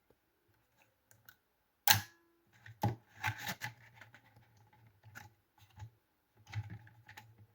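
Hands handling the drive's packaging and contents: a sharp click about two seconds in, another a second later, then scattered small clicks, taps and rustling.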